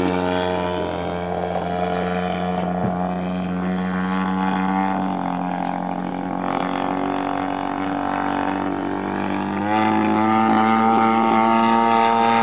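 Radio-controlled model plane's engine running in flight, a steady droning hum. Its pitch and loudness step up a little about ten seconds in as the throttle is opened.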